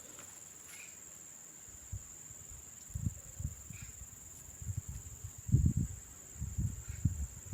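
Steady high-pitched insect chorus, crickets or similar, with a run of irregular low thumps and bumps starting about three seconds in.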